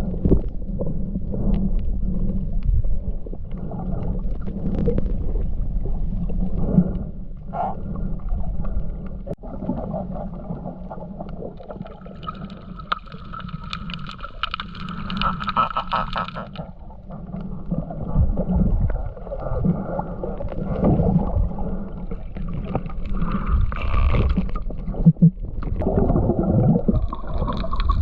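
Muffled rumbling and gurgling of moving water, as heard by a camera underwater.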